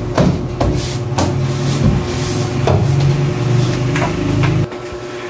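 PVC ceiling panel being pushed and fitted into place overhead: a series of sharp plastic knocks and rubbing as the panel is worked into its slot. A steady low hum runs underneath and cuts off suddenly near the end.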